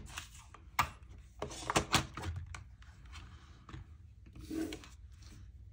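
Small craft embellishments and their containers being handled on a tabletop: sharp clicks and light knocks about a second and two seconds in, with rustling between, and a softer rustle a little after four seconds.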